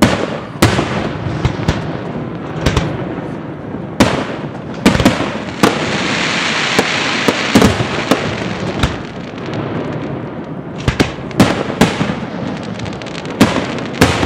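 Aerial fireworks shells bursting one after another, more than a dozen sharp bangs at uneven intervals, some in quick pairs.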